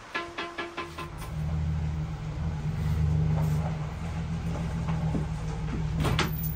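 A car engine runs with a steady low hum that sets in about a second in, after a quick run of clicks.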